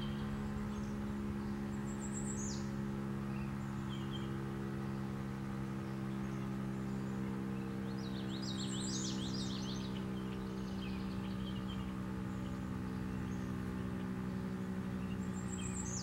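A steady low drone made of several held pitches, never rising or falling, with small birds chirping and twittering over it, a busy flurry of chirps about eight seconds in.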